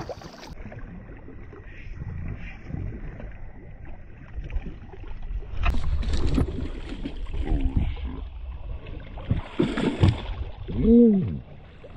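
Shallow water sloshing and splashing around a wader and a flounder gig being jabbed into the water, with a sharp splash about six seconds in and a bigger burst of splashing about ten seconds in.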